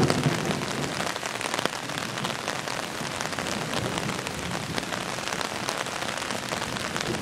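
Steady rain, with many sharp drops striking an umbrella close by.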